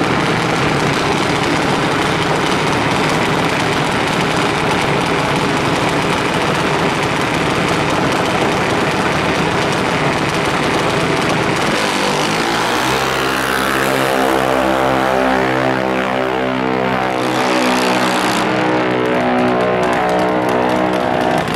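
Loud drag-strip engine noise. About twelve seconds in, a junior dragster's engine comes through with a steady pitch that wavers up and down in small steps.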